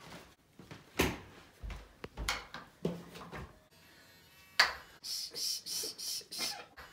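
Hard plastic sport-stacking cups knocking as they are set down and stacked on a bathroom counter: a few separate knocks, then a quick run of scratchy clatter, about four strokes a second, near the end.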